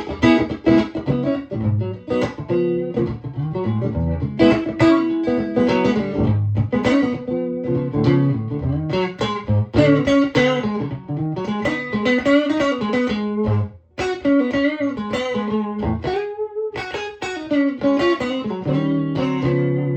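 Electric guitar, a Stratocaster on its neck pickup with the guitar's volume rolled back to 7, played through a Victoria 35310 tweed Bandmaster-style tube amp with three 10-inch Jensen speakers. It plays a continuous run of picked notes and chords, with a brief stop about 14 seconds in.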